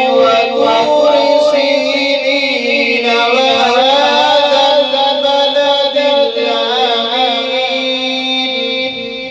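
A man's voice reciting the Quran in melodic tajweed chant, drawing out long held notes with ornamented wavering turns of pitch; the phrase fades away near the end.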